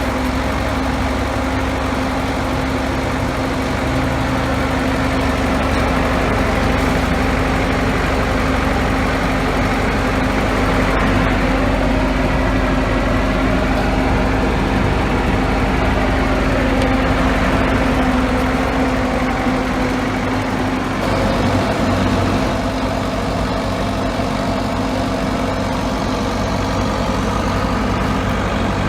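Bomag 814 asphalt paver's diesel engine running steadily. A whine rises and falls in the middle, and the engine note changes about two-thirds of the way through.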